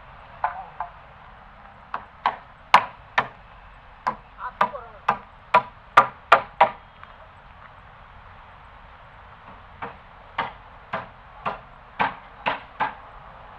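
A run of sharp knocks, about two a second, coming in several bursts with a quiet gap of about three seconds in the middle.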